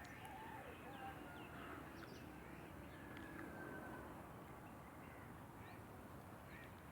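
Several birds calling, many short overlapping chirps and calls, faint over a steady low background noise.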